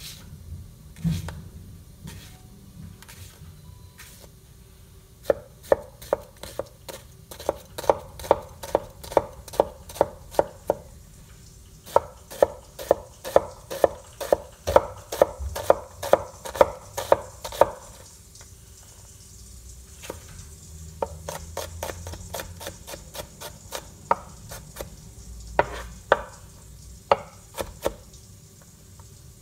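Itsuo Doi Blue 2 steel 240 mm gyuto chopping onion on a wooden cutting board: scattered cuts at first, then two runs of quick, even strokes at nearly three a second, then scattered cuts again near the end.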